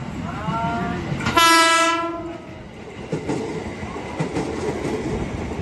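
Train horn sounded twice: a short note that bends up in pitch as it starts, then a louder, steady blast of about two-thirds of a second. Afterwards the train's wheels clatter over the rail joints as it passes.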